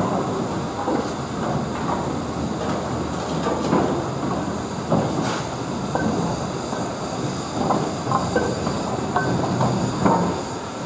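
LMS Hughes Fowler 'Crab' 2-6-0 steam locomotive No. 13065 running slowly through the station, its wheels clicking over the rails.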